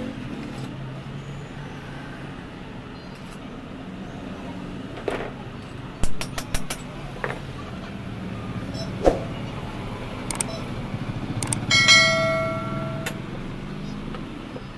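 Workshop sounds at a bench vise: a quick run of sharp metal clicks and a few single knocks as shock absorber parts are handled, over a steady low traffic hum. Near the end a brief pitched tone sounds for about a second.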